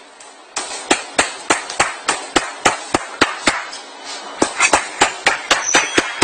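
An HTC smartphone used as a hammer, driving a nail into a strip of wood: a quick run of sharp knocks, about three or four a second, starting about half a second in.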